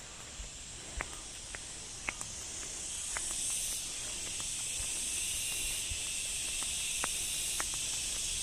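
Rushing water: a steady hiss that grows louder from about three seconds in, with a few sharp clicks over it.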